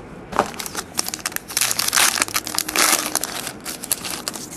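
A trading card pack's wrapper crinkling as it is handled and opened by hand, a dense crackle loudest in the middle.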